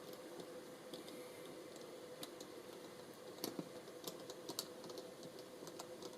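Scattered light clicks and taps of small watch parts and tools being handled as a digital watch is reassembled, with a cluster of sharper clicks around the middle. A faint steady hum runs underneath.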